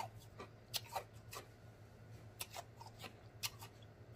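Quiet, wet mouth clicks and lip smacks, sharp little ticks scattered irregularly, over a faint steady low hum.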